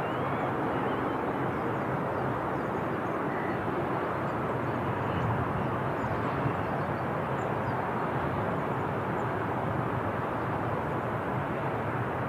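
Lockheed C-130H-30 Hercules's four Allison T56 turboprop engines and propellers running with a steady, even noise as the aircraft moves along the runway.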